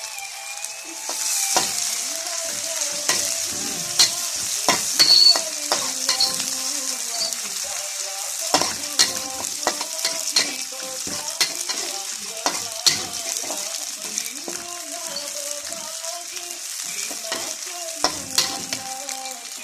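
Bitter fern shoots (paku pahit) stir-frying in a hot pan: a steady sizzle, with frequent irregular clicks and scrapes of a spatula against the pan as it is stirred.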